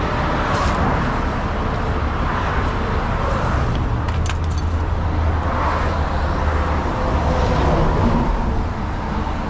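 Steady road noise of freeway traffic going past close by, with slow swells as vehicles pass and a few light clicks about four seconds in.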